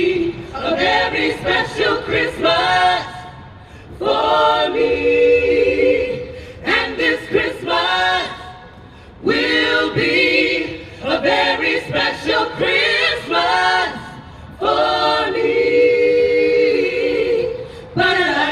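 A cappella vocal group of mixed men's and women's voices singing an R&B-style holiday song in harmony, without instruments. The singing comes in phrases with held notes and short breaks between them.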